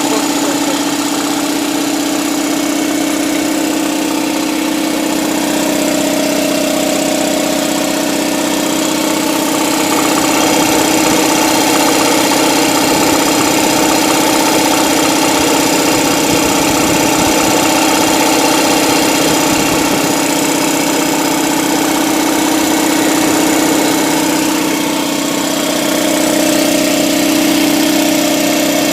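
Husky 60-gallon air compressor running steadily, its electric motor and pump giving a continuous drone with a strong low tone.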